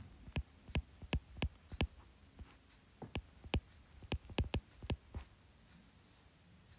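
Stylus tapping and clicking on a tablet while a word is handwritten: quick, irregular clicks that stop about five seconds in.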